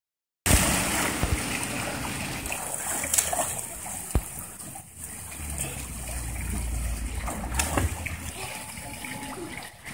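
Swimming-pool water splashing as a child plunges in and swims, with a steady pour of water from the pool's wall spillways underneath.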